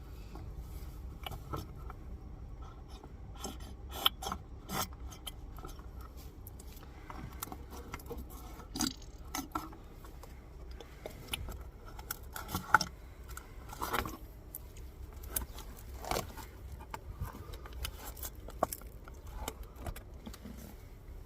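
Metal hand tools clinking and scraping on a boat's inboard engine, with scattered sharp clicks and knocks over a low steady background.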